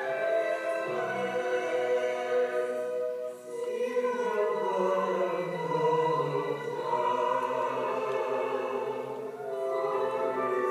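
Church choir singing held chords, with a short break between phrases about three seconds in and another near the end.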